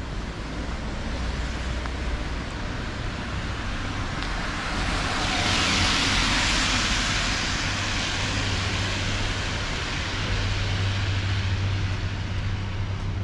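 City street traffic: a steady rumble of cars, with one vehicle passing close about halfway through, its noise swelling and then fading.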